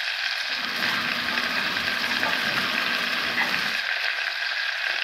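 Butter melting and sizzling in a stainless steel pot, a steady crackling hiss as the seasoned butter bubbles at the start of a béchamel roux.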